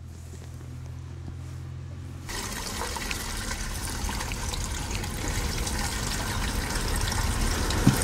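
Gasoline pouring through a plastic funnel into a small engine's fuel tank. The pour starts suddenly about two seconds in and grows slowly louder as it flows. Before it there is only a low steady hum.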